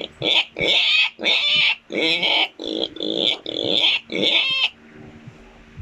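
Pig sound effect: a quick series of about ten short pig calls, roughly two a second, that stops about three quarters of the way through.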